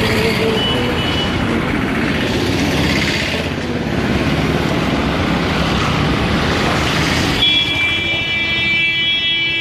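Busy street traffic: cars and motor vehicles passing with steady road noise. Near the end a steady high-pitched whine starts and holds.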